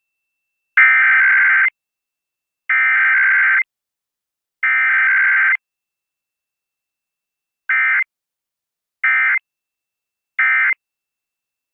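Emergency Alert System SAME data tones for a required weekly test. The harsh, buzzy digital header sounds three times, in bursts of about a second, with no attention tone after it. Then the end-of-message code sounds three times in much shorter bursts.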